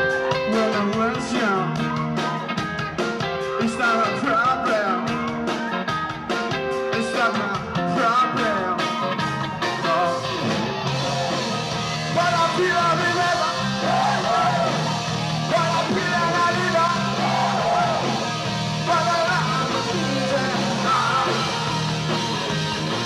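Live rock band music with a singer over drums and electric guitar. About eleven seconds in the music changes and the bright, cymbal-heavy beat drops away while the bass and singing carry on.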